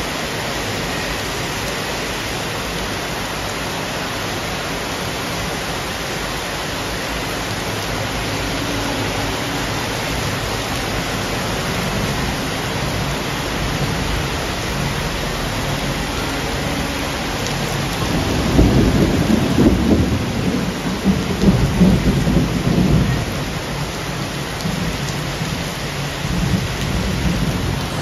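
Heavy rain pouring steadily onto a paved street and parked cars, an even hiss. About two-thirds of the way through, a low rumble of thunder swells for several seconds and then fades back under the rain.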